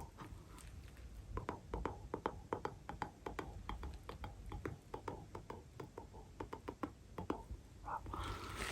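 Bubble wrap being popped close up: a quick, irregular run of small sharp pops, several a second, with some crinkling of the plastic.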